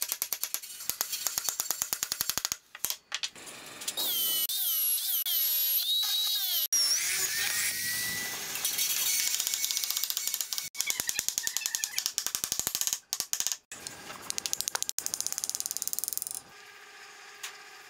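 Rapid, evenly spaced clicking, then a wavering high tone. A drill press motor then winds up with a rising whine and runs steadily as it bores into a hardwood block, and more runs of quick clicks follow.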